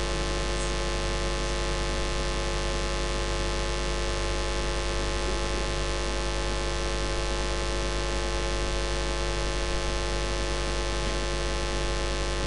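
Steady electrical mains hum with a static hiss over it, a stack of even tones that does not change.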